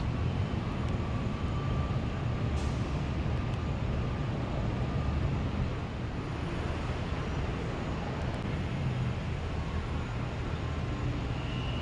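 Steady low engine drone with a hazy traffic-like rumble, typical of vehicles and machinery around an airport roadway.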